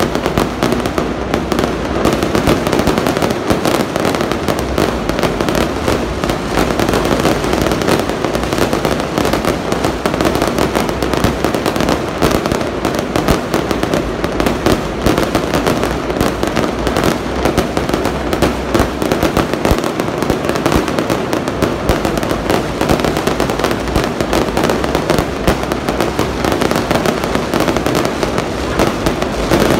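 A dense fireworks barrage: aerial bursts and crackling bangs going off in rapid, overlapping succession without a pause.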